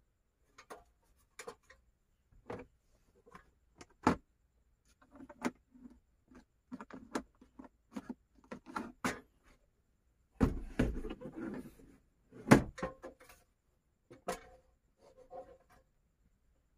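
Irregular clicks, knocks and rustles of things being handled in a small enclosed space, with two louder thumps about ten and twelve seconds in.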